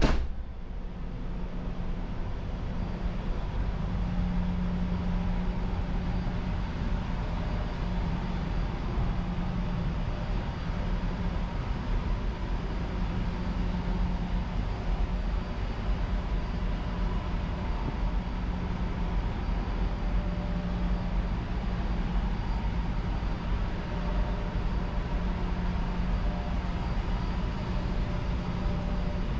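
Steady drone of a ship's engine-room machinery heard inside the engine control room, a low hum with a few steady tones, muffled by the control room walls. A sharp thump right at the start is the loudest moment.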